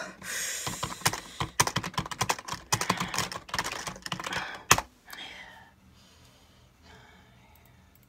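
Typing on a computer keyboard: a fast, uneven run of key clicks that ends with one sharper keystroke a little under five seconds in, after which the typing stops.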